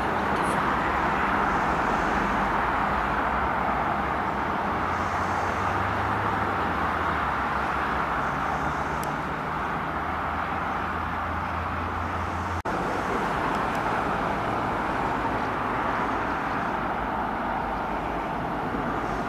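Steady rumble of trains running through a railway halt: a CP series 2240 electric multiple unit with a low hum under it, then a freight train hauled by a locomotive approaching.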